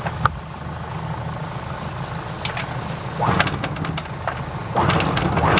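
Sailboat's inboard diesel engine idling steadily, with short sharp clatters at the bow about three and five seconds in as the anchor snubber is brought up.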